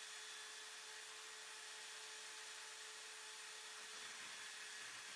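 Portable bandsaw running steadily with a faint even hum, its blade trimming the end off a small screw held in a wooden jig.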